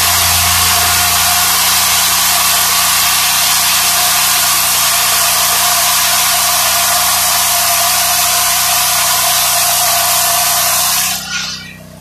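Engine-driven circular blade of a homemade Lucas Mill-style sawmill ripping along a log, a loud, steady cutting noise over the engine's drone. About a second before the end the cutting noise drops away sharply, leaving the engine running much more quietly.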